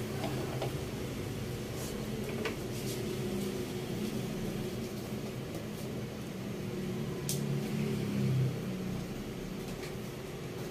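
A ladle stirring thick coconut milk with glutinous rice balls in a metal wok, with a few sharp clicks of the ladle against the pan, over a steady low appliance hum.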